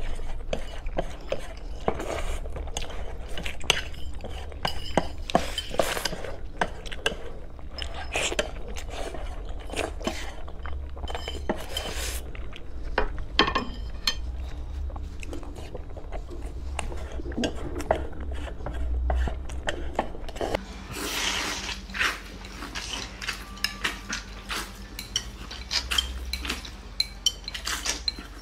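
Eating sounds: many sharp clicks and scrapes of chopsticks against ceramic plates and bowls, with slurping and chewing of noodles and boiled eggs mixed in.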